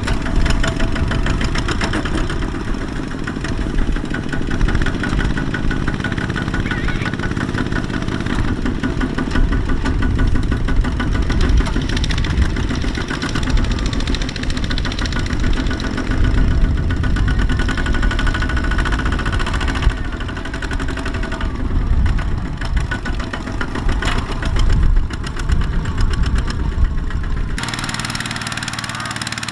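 Kubota single-cylinder diesel engine of a small two-wheel farm tractor running under load in deep mud, its note rising and falling unevenly. Near the end the sound changes abruptly to a steadier, quieter engine note.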